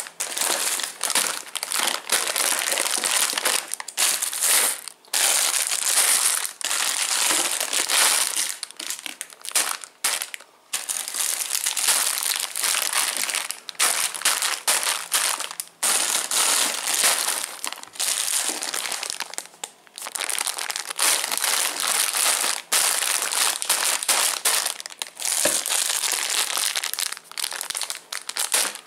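Plastic and foil candy wrappers and packets crinkling as hands rummage through a pile of packaged sweets, almost without pause, with a few short breaks in the handling.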